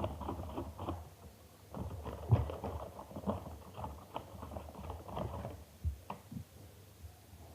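Slime mixture being stirred and worked with a spoon: irregular soft clicks and taps, fading near the end.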